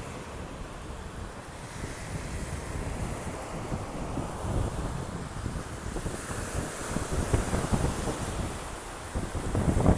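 Sea waves washing onto a beach, with wind buffeting the microphone. The wash swells louder in the second half.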